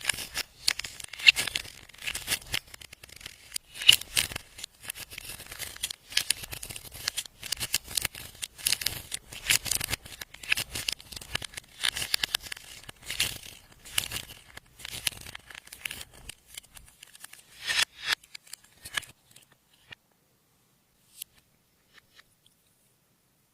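Clear slime being squished and stretched by hand, giving dense wet crackling and popping clicks; they stop about twenty seconds in, leaving only a few faint clicks.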